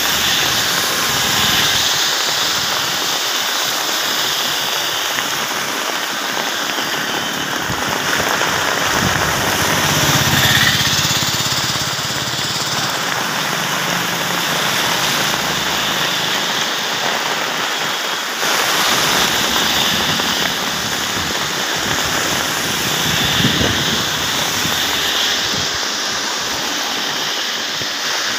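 Heavy rain falling steadily onto a wet road, with vehicles passing and their tyres hissing through standing water; a louder pass comes about ten seconds in and another a little after halfway.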